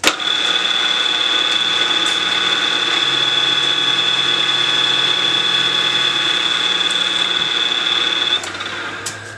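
End mill on a PM-940 CNC mill cutting a block of UHMW plastic, squaring the end of the part: a loud, steady cutting sound with a high whine. It starts abruptly, and the whine stops about eight seconds in, leaving a quieter run-down.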